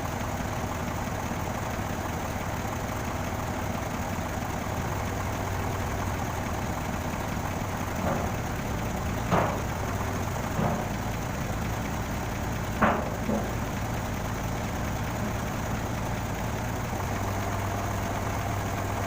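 Engine idling steadily with a low hum, with five short knocks between about eight and thirteen seconds in, two of them louder than the rest.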